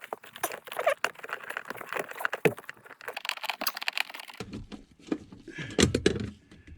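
Irregular small metallic clicks and taps with rustling from a socket on a straight extension, driving a mounting bolt into the parking brake pedal bracket by feel. A denser, lower patch of handling noise comes about two-thirds of the way in.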